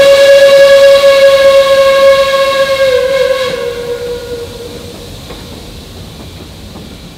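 A geared steam locomotive's whistle blows one long, loud note that sags slightly in pitch and dies away about three and a half seconds in. After it, freight cars are heard rolling over the rails more quietly.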